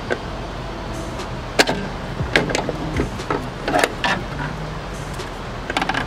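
Scattered plastic clicks and knocks as a screwdriver pries at the plastic trim piece above a Chevy Express van's tail light, which is held by push-pin clips. The loudest knock comes about a second and a half in.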